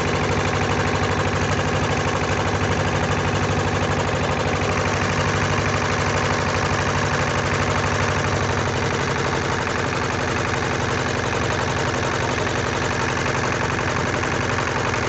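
A boat's engine running steadily at an even speed, a constant pulsing drone with no change in pace.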